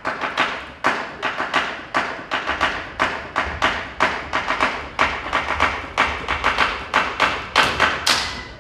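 Knives chopping vegetables on cutting boards: a quick, slightly irregular run of sharp knocks, about three to four a second, getting louder toward the end.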